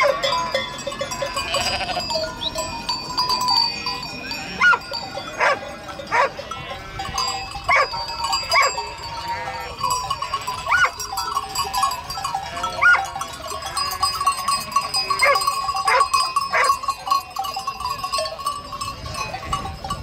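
A flock of sheep bleating, many short calls overlapping one another, with bells ringing steadily among them.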